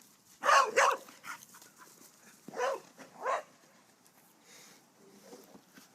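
A dog's short vocal calls: two in quick succession about half a second in, then two more a little over two seconds later.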